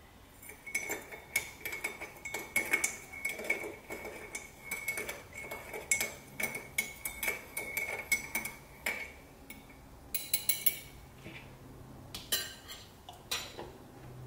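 Metal spoon stirring honey into tea in a ceramic mug, clinking quickly and repeatedly against the mug's sides with a steady ringing tone for about nine seconds. A few more short runs of clinks follow near the end.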